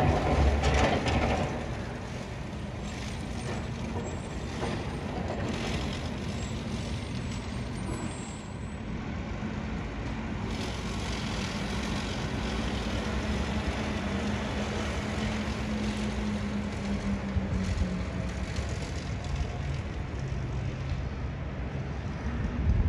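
Heavy sanitation truck with plow and salt spreader driving past on a snow-covered street, loud at first and fading about a second and a half in to a steady lower engine rumble as it moves away.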